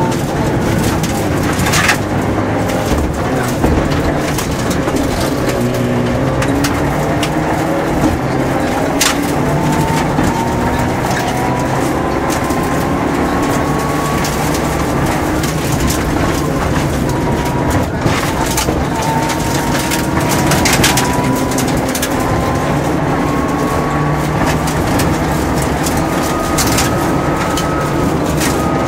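Mitsubishi Lancer Evolution rally car's turbocharged four-cylinder engine under hard acceleration on gravel, heard from inside the cabin: the engine note climbs slowly in pitch, drops about halfway through, then climbs again. Gravel rumbles under the tyres, with a few sharp knocks of stones hitting the car.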